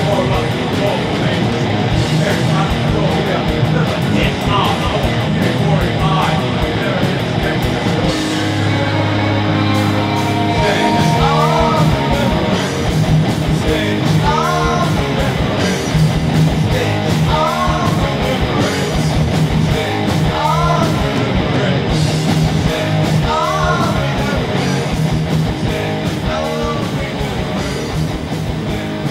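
Loud heavy rock music from a band recording, with guitars and fast, dense drumming. From about eleven seconds in, a short rising figure repeats about every three seconds.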